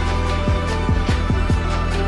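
Background music with a steady beat of deep electronic kick drums.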